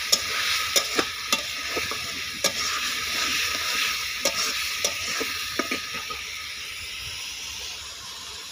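Spice masala sizzling in oil in a kadhai while a ladle stirs it, a steady frying hiss with irregular sharp clicks. The masala is being fried down before the chicken goes in. The sizzling eases off near the end.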